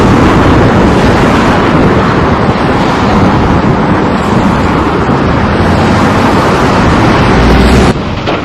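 Volvo demolition excavators' diesel engines running as their shears work through the scrap, a loud, dense noise that drops in level near the end.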